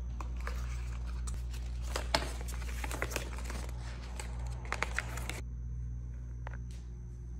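White cardboard and paper packaging being handled and folded, a run of crinkles, rustles and small clicks. The sharpest snap comes about two seconds in, and the handling stops about five seconds in, leaving a steady low hum.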